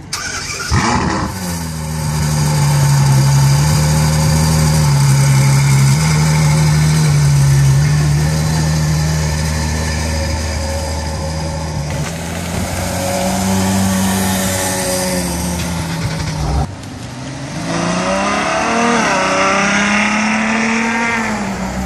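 Ferrari F12 Berlinetta's V12 starting with a sharp flare of revs, then settling into a loud, steady fast idle with small steps in pitch. After a sudden cut it accelerates hard, the revs climbing and dropping back several times through gear changes, falling away near the end.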